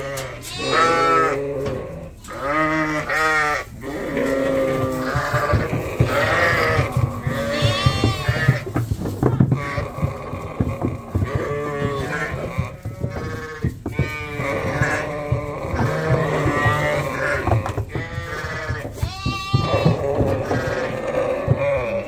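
A flock of sheep bleating, many calls overlapping almost without pause, some high and some deeper, over a low rumble of movement.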